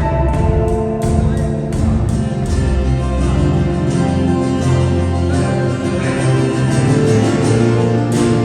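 A live rock band playing in a large concert hall: sustained guitar and keyboard chords over drums keeping a steady beat.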